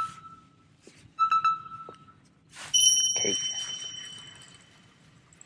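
Electronic alarm-style sound effect: quick clusters of short beeps repeating about every second and a half. About two and a half seconds in, a whoosh gives way to a bright ringing chime that fades over about two seconds.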